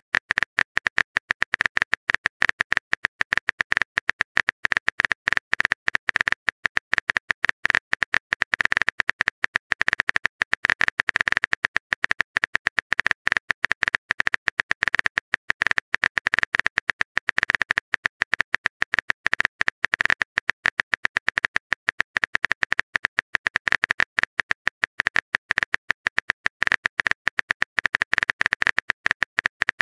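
Keyboard-typing sound effect of a texting-story chat: rapid, even clicks, many a second, going on without a break.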